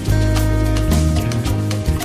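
Background music with a steady beat: an upbeat instrumental track with a bass line, held notes and percussion.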